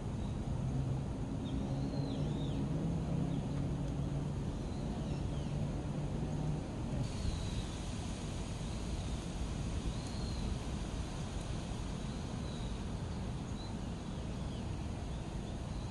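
Outdoor ambience: a steady low hum, like a distant engine, that stops about six seconds in, and small birds chirping briefly now and then over a constant background noise.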